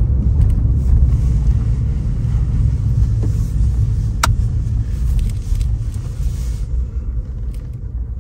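Low rumble of road and engine noise inside a car's cabin as the car rolls slowly along, easing off in the last couple of seconds as it slows. A single sharp click about four seconds in.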